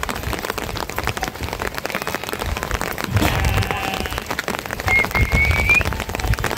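Steady rain pattering down on a surface as a dense, even patter of drops. A short rising whistle-like sound comes about five seconds in.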